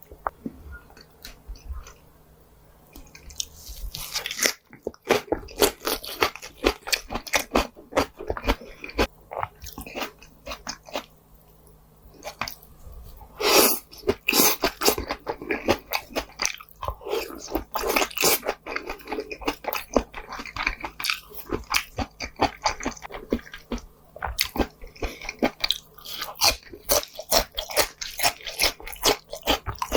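Close-miked chewing of pork jowl (hangjeongsal): a dense, fast run of mouth clicks and bites, starting about four seconds in, with one louder bite about midway.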